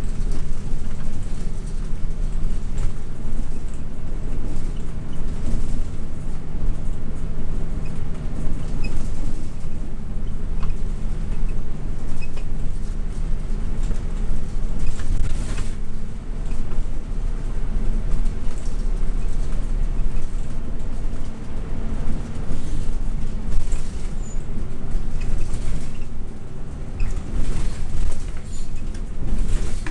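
Hino HU3K city bus heard from inside the passenger cabin while under way: a steady engine hum and road rumble, with a few short knocks or rattles. The engine's steady tone drops away about two-thirds of the way through.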